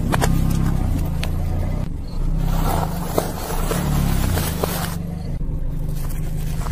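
A car's engine runs low as its tyre slowly rolls over and crushes small objects on asphalt: crackling and crunching with occasional sharp snaps. The sound changes abruptly a couple of times as one crushed item gives way to the next.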